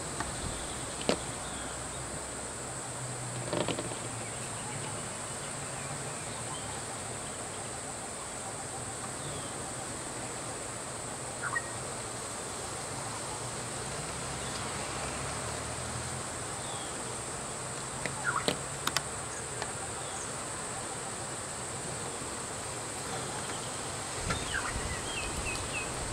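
Steady high-pitched insect drone over a faint low hum of idling vehicle engines, with a few short clicks scattered through.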